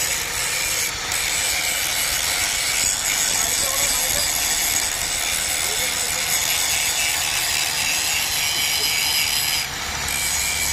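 A power tool cutting or grinding metal: a steady abrasive hiss with high whining tones, easing off briefly about a second in and again near the end.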